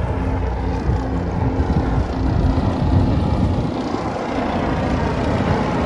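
Two helicopters flying overhead: a steady, low drone of rotors and engines.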